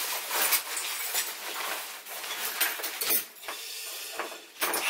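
Hands rummaging in a fabric stuff sack: the fabric rustles and small packed items inside knock and clink lightly against each other as they are felt for and taken out.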